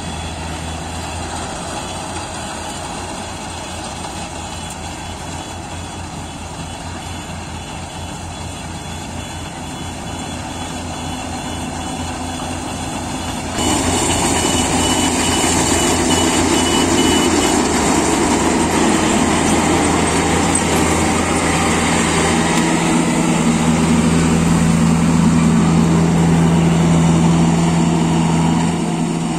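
Yanmar AW70GV combine harvester running steadily. About thirteen seconds in, it abruptly becomes louder and fuller, with a brief high whine.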